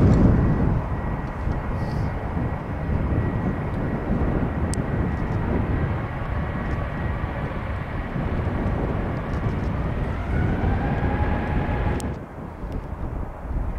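Airbus A320 jet engines running at low power as the airliner taxis: a steady low rumble with a thin whine. About ten seconds in the whine rises in pitch, and near the end the sound drops off abruptly.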